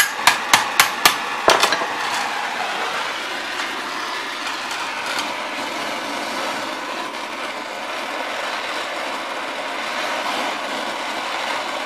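Oxyacetylene torch flame hissing steadily while it heats a steel rod against a bending jig, bringing it toward cherry red for bending. About five sharp metal taps sound in the first second and a half.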